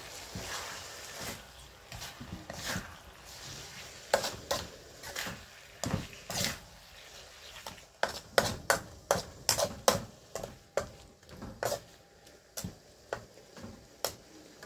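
Metal spatula scraping and knocking against a steel wok as chunks of pork are stir-fried, in quick irregular strokes that come fastest a little past the middle.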